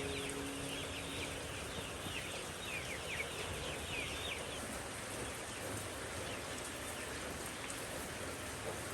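Steady rain, with a flock of chicks peeping in many short, falling chirps through the first half.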